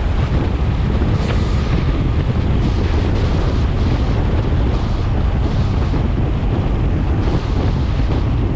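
Steady wind rushing over the microphone of a GoPro action camera on a moving car, heaviest in the low end, with road noise underneath.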